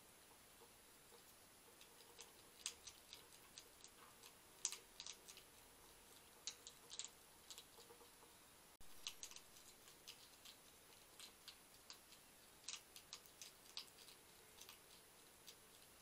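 European hedgehog crunching dry kitten food from a bowl: irregular sharp little crackles, several a second in short bursts, beginning about two seconds in.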